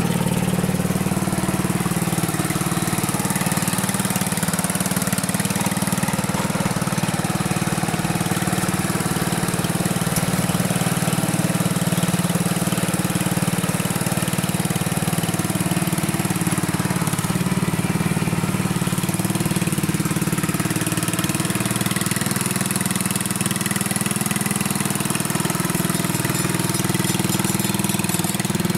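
Simplicity 4208 lawn tractor's small petrol engine running steadily while the tractor is driven across the grass.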